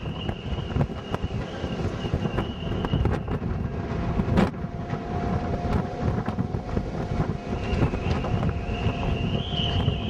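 Wind buffeting the microphone, with faint steady high whistling tones coming and going and a single sharp click about four seconds in.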